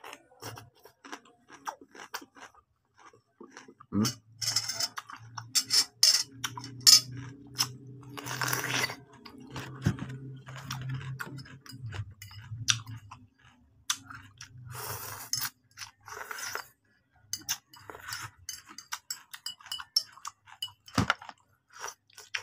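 Close-up eating sounds: crunching bites and chewing of raw cucumber and fried instant noodles, with short clicks of a metal spoon against a glass plate.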